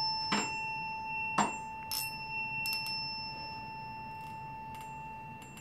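A struck tuning fork ringing with one steady high tone that slowly fades, while a ping pong ball on a string clicks against the end of its vibrating prong about six times, the clicks strongest in the first two seconds. The ball is knocked away each time by the fork's vibration.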